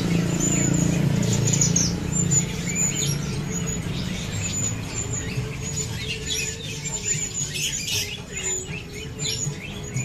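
A flock of Javanese bushlarks (branjangan) chirping, many short high chirps overlapping, over a low hum that fades after the first two or three seconds.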